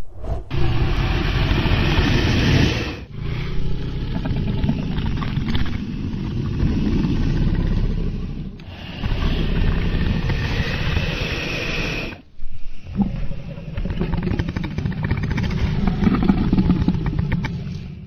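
Dragon sound effect: loud, low roars in four long stretches with short breaks between them.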